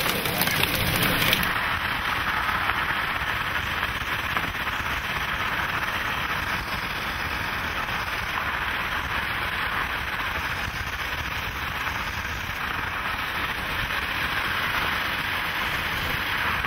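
Heavy rain pelting the vehicle for about the first second and a half, then a steady rush of noise inside the vehicle.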